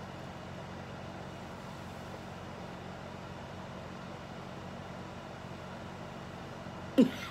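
Steady low hum with an even hiss, with no separate strokes or rhythm; near the end a short, loud vocal sound falls in pitch.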